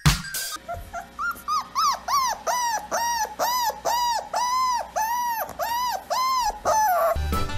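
Bulldog puppy crying in a long run of short, high whimpers, two or three a second, each rising and falling in pitch, ending on one longer falling cry.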